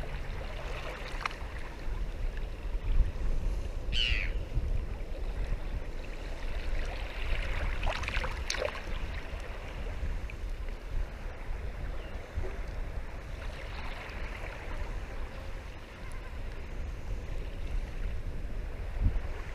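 Shallow water sloshing and splashing around the legs and hands of someone wading and feeding out a set net, over a low rumble, with a few louder splashes about eight seconds in.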